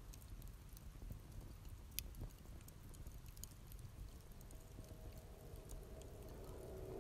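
Quiet low rumble with scattered faint crackles and clicks. A low sustained music drone swells in over the last couple of seconds.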